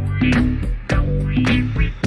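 Instrumental passage of a Turkish disco track: a steady drum beat of about four hits a second over bass and held notes, with no singing.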